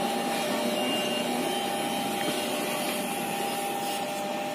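Steady rolling noise of the 16-car KA Kertajaya passenger train's wheels on the rails as it moves away, an even rushing sound with a faint steady tone in it.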